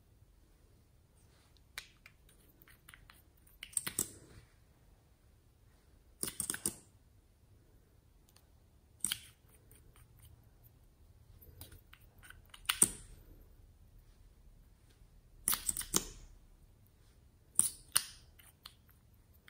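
Plastic lip gloss tubes being handled and uncapped, with the applicator wands drawn out: a series of sharp plastic clicks and taps, one cluster every two to three seconds.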